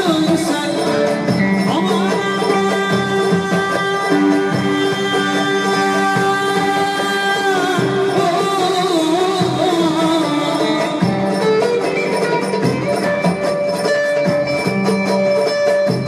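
Man singing a Turkish folk song (türkü) in long held notes with bends and glides, over a plucked string accompaniment.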